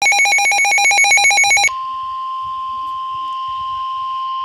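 Emergency Alert System header data burst, a harsh rapidly warbling digital screech, cuts off abruptly about a second and a half in. A steady single-pitch weather-radio warning alarm tone follows, signalling a severe thunderstorm warning.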